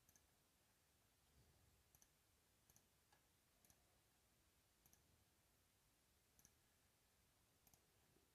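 Near silence with faint, scattered clicks of a computer mouse, about eight of them at irregular intervals.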